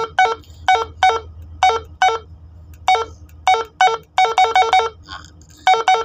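Keypad beeps from a Baofeng UV-82 handheld radio as its arrow key is pressed over and over to scroll through the menu settings: short electronic beeps at uneven spacing, about eighteen in all, with a quick run of four or five about four seconds in.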